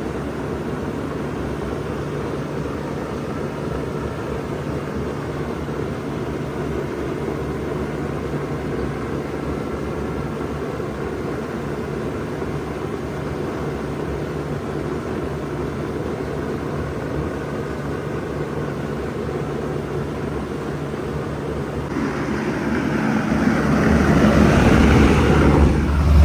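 1992 Bard 2.5-ton wall-hung heat pump running in cool mode: a steady low hum with an even rush of fan air. About 22 seconds in, the rushing grows louder and fuller, swelling to the loudest point at the end.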